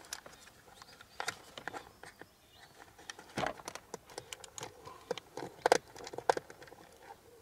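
Fishing gear being rummaged through and handled: scattered clicks, rattles and light knocks, with a few louder knocks about six seconds in.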